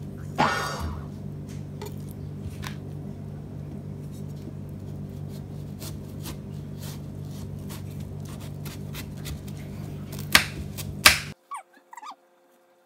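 Large kitchen knife cutting through a whole watermelon on a wooden board: a crackling tear about half a second in as the blade goes through the rind, scattered light knocks, and two loud knocks near the end, over a steady low hum. The hum cuts off suddenly near the end, leaving only faint high squeaky sounds.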